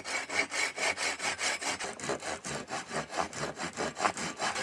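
Folding pruning saw cutting grooves into the end of a wooden pole, in quick, even back-and-forth strokes at about four a second.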